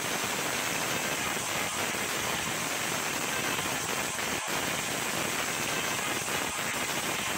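Steady, even rushing noise like static or white noise, with no tone or beat, playing along with an intro animation preview.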